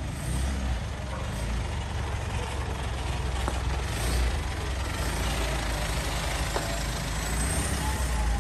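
Mitsubishi Strada pickup's engine running as the truck pulls off and drives past close by, with tyre noise; the sound swells a little as it passes.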